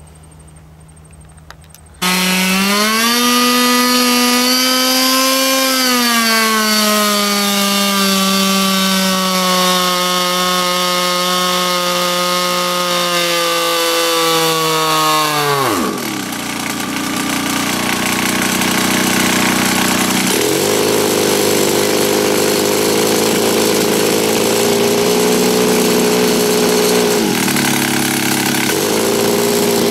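Stock 26cc Zenoah two-stroke engine running at high revs on a water brake dyno; it comes in abruptly about two seconds in and its pitch drifts slowly down. About 16 seconds in, the revs drop sharply, and it runs on at a lower speed with small rises and dips.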